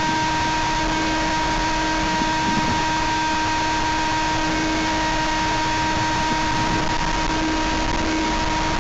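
Sky Surfer RC plane's electric motor and propeller running at a steady pitch, over a constant hiss of wind noise.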